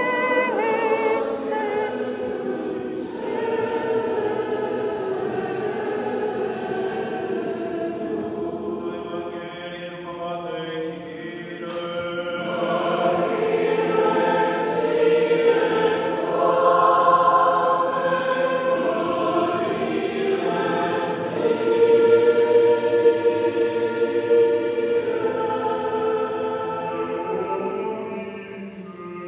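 A choir singing Orthodox liturgical chant during a service, held sung notes blending under a cathedral's resonant acoustics, dipping a little partway through and then swelling again.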